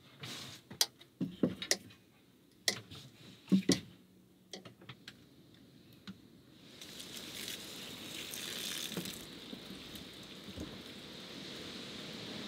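A few sharp clicks and knocks of objects being handled, then, from about seven seconds in, water pouring from a plastic jerrycan in a steady splashing stream that stops abruptly at the end.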